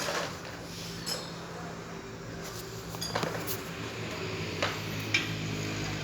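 Metal tools clinking and knocking, about six sharp separate strikes over a steady low hum.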